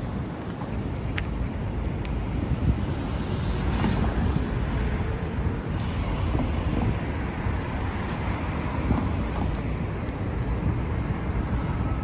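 Downtown street traffic: a steady low rumble of cars and tyres at an intersection, with a car passing close about halfway through.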